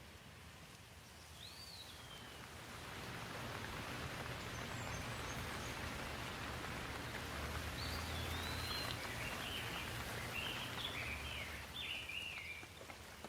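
Rain falling on leaves, a steady hiss that swells louder a few seconds in and eases near the end. A bird chirps once early on and several times in the second half.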